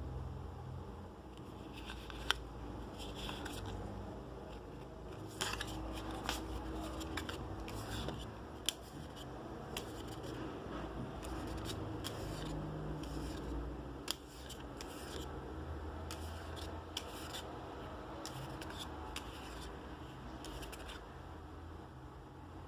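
Trading-card packaging and cards being handled: irregular scratchy rustles, scrapes and sharp clicks, over a low steady hum.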